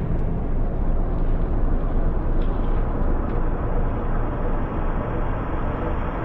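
Steady low rumbling noise with a hiss on top, without clear tones or separate events.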